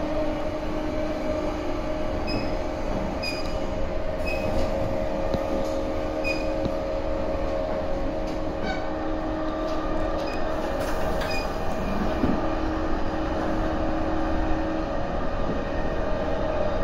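A JNR 185 series electric multiple unit running at speed on the Tokaido Line, heard from on board: a steady rumble of wheels on rail with a continuous motor hum, and now and then faint light ticks.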